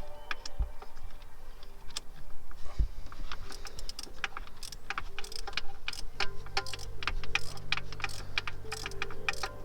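Hand socket ratchet clicking in quick, uneven runs as a nut on the earth cable is tightened down, the clicks coming thicker from about three seconds in.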